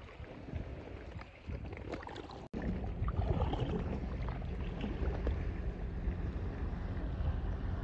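Water lapping and splashing around a small boat at the waterline, with wind rumbling on the microphone. The sound cuts out abruptly about two and a half seconds in and comes back louder.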